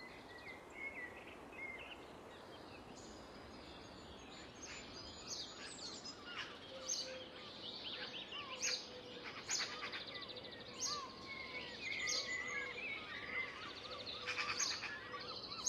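Birdsong: several small birds chirping and warbling over a faint steady hiss, sparse at first and busier from about four seconds in.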